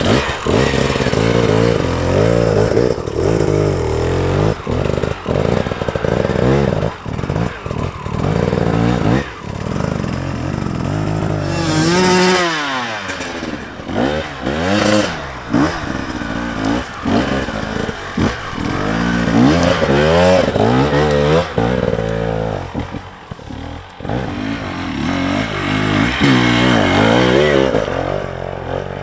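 Hard enduro motorcycle engines revving and blipping hard on a steep forest climb, pitch jumping up and down with the throttle, mixed with knocks and clatter of the bikes over roots and rocks. About twelve seconds in, one engine's pitch drops sharply.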